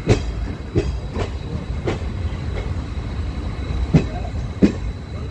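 A moving train's wheels clacking over rail joints, with a steady low rumble underneath, heard from the open coach doorway. There are about half a dozen sharp knocks at uneven spacing, some in quick pairs.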